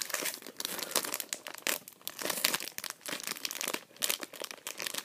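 Thin plastic Pocky snack packet crinkling with dense, irregular crackles as it is torn open by hand.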